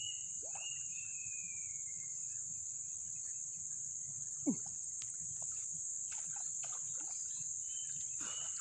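Steady high-pitched drone of insects, with a few short falling whistled bird calls in the first two seconds and one brief sharp downward squeak about halfway through.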